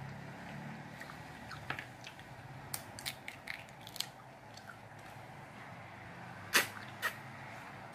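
Lychee shells crackling and snapping as they are peeled by hand, heard as a string of short clicks, then mouth sounds of biting and eating a lychee, with two louder sharp clicks near the end.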